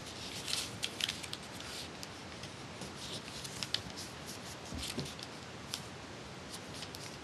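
Origami paper being folded and creased by hand: scattered short, light crinkles and rustles of the paper, over a steady faint hiss.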